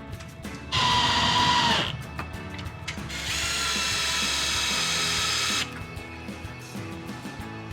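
Power drill running in two short bursts, the first about a second long and the second about two seconds, driving screws to mount the fixture. Background music plays underneath.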